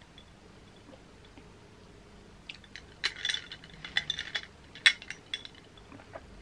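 Ice cubes and a metal straw clinking against a drinking glass as the drink is stirred: a flurry of light, ringing clinks from about two and a half seconds in, with the sharpest single clink about five seconds in.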